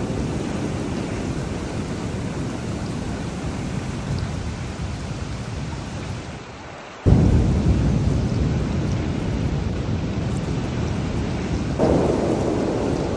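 Heavy rain with low, rolling thunder. The rumble fades, then a sudden thunderclap breaks in about seven seconds in and rolls on, and the thunder swells again near the end.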